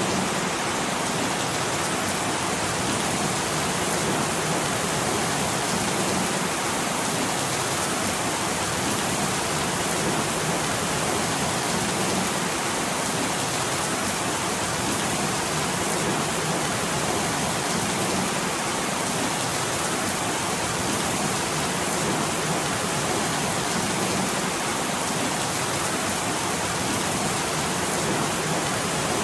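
Steady rain falling, an even, unbroken hiss of rain with no thunder or other sounds in it.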